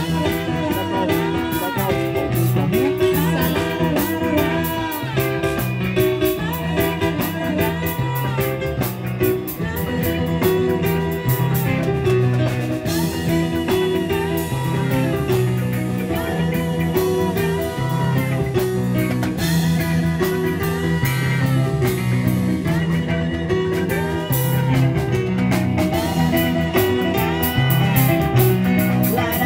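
Live rock band playing an instrumental passage: electric guitar lines with bent notes over bass and a steady drum beat.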